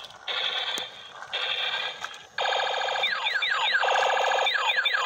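Battery-operated transforming robot toy car playing its electronic music and sound effects through a small built-in speaker: choppy blocks of buzzy tones, louder from about halfway, with quick falling laser-like zaps twice near the end.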